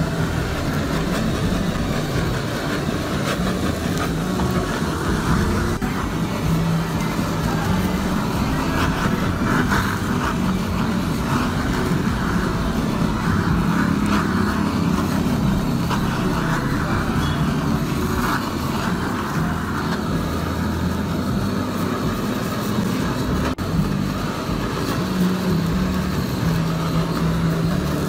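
Steady roar of a hand-held gas torch flame browning grated cheese, over the low engine hum of passing road traffic.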